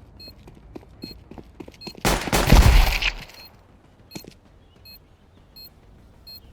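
Gunfire-like sound effects: scattered sharp cracks, then a loud burst with a low boom lasting about a second, about two seconds in. Faint short high beeps repeat under it.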